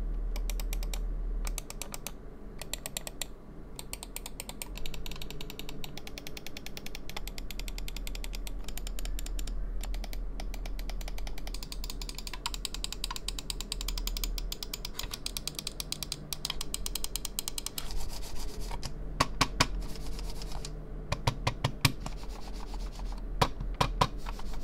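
Computer-mouse scroll wheels on VXE R1-series gaming mice being rolled, a fast run of fine notched ticks. Near the end come quick groups of sharper, louder clicks from the mouse buttons.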